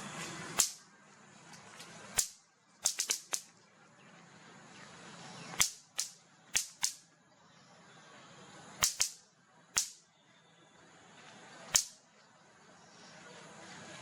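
A series of sharp clicks or snaps, about fourteen, some single and some in quick clusters of two to four, over a faint background hiss.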